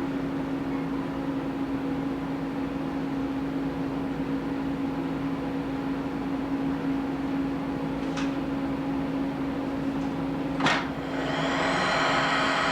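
Steady electrical hum of laser-surgery equipment, with two clicks late on. A hiss with higher tones rises near the end, just before the excimer laser starts its rapid pulsing.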